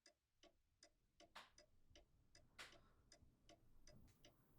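Faint, steady ticking of a clock, about two and a half ticks a second. Two soft rustles come at about one and a half and two and a half seconds in.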